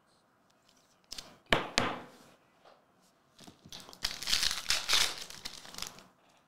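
Foil wrapper of a 2023-24 Select basketball hobby card pack being crinkled and torn open by hand: two sharp rips about a second and a half in, then a longer stretch of crinkling and tearing from about four seconds in until near the end.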